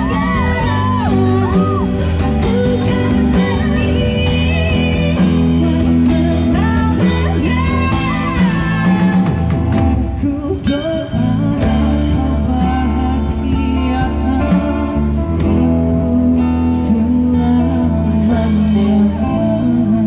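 Buskers' amplified cover song: singing over two strummed acoustic guitars and a heavy low bass. The singing drops out about halfway through, and the guitars carry on.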